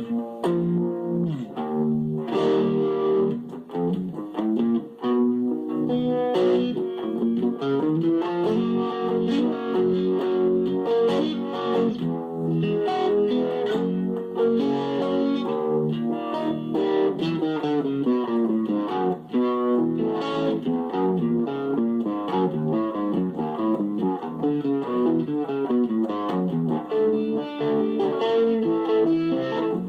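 Fender Stratocaster electric guitar on its neck pickup, played through a KR Musical Mega-Vibe (Uni-Vibe-style modulation pedal) with the fuzz off and the guitar volume all the way up. It plays a continuous run of single notes and chords.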